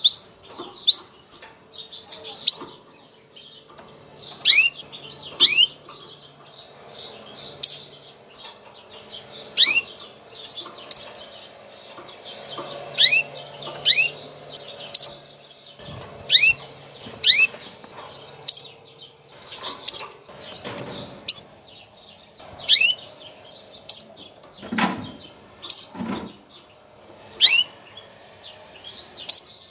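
Female canary's mating call: short, sharp high chirps repeated about once a second, some in quick pairs. It is the call used to bring male canaries into breeding condition.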